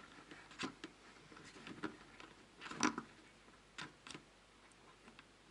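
Faint, irregular clicks and taps of small hardware against a plastic bucket as a wing nut is screwed onto a connector through the bucket wall, with one louder knock about halfway through.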